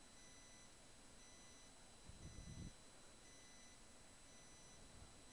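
Near silence: room tone with a faint high-pitched tone pulsing about once a second, and a brief soft low rumble about two seconds in.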